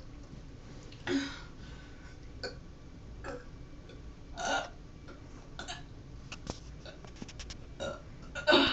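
A girl burping in short bursts several times after drinking water, the loudest about a second in, at about four and a half seconds and near the end, with small clicks in between.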